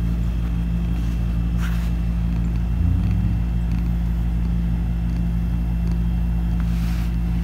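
Domestic cat purring steadily, close up: a low, continuous, finely pulsing rumble.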